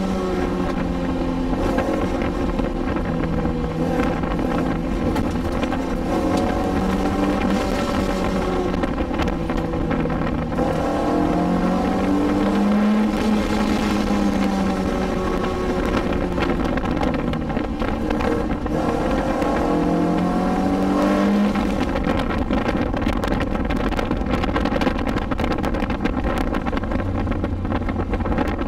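Car engine heard from inside the cabin, its revs rising and falling over steady road and tyre noise. About three-quarters of the way through, the engine note fades and the road rumble remains.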